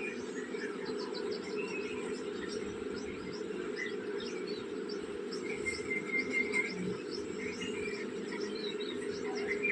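Small birds chirping and twittering in quick, irregular high notes, with a longer chirp about six seconds in, over a steady low hum.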